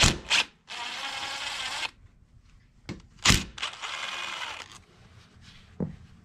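Cordless impact driver on a socket extension hammering in two bursts of about a second each, working a nut off the clutch side of a 1985 Honda ATC 200S engine. A sharp metallic knock comes just before each burst.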